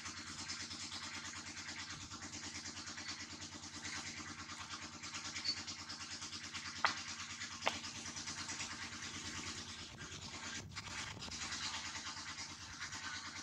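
Steady outdoor ambience: a high hiss with a fine, rapid pulsing, broken by two sharp clicks about halfway through.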